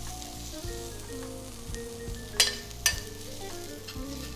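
Utensil clinking twice against a stainless steel pan while asparagus is served from it, two sharp clinks half a second apart about halfway through, over a faint sizzle from the hot pan and background music.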